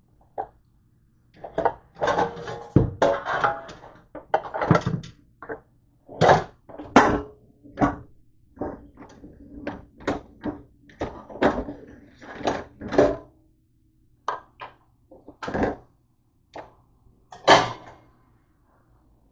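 Kitchenware clattering in a dish rack as it is rummaged through: metal pans, a wire rack and plastic trays knocked and shifted against each other in a string of irregular clanks and thunks, some ringing briefly.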